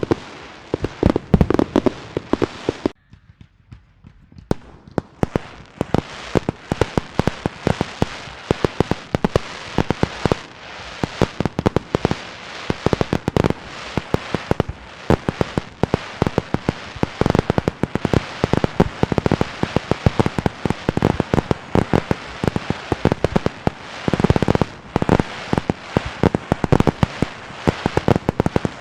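Fireworks and firecrackers going off in a dense, rapid barrage of sharp bangs and crackles. There is a brief drop to near silence about three seconds in, then the barrage resumes.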